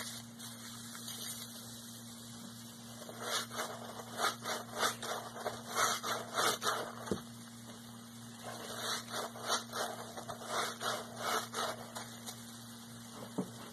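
Soapy sponges squeezed by hand in water, wet foamy squelches in two rhythmic runs of roughly two to three squeezes a second, with a short pause between them.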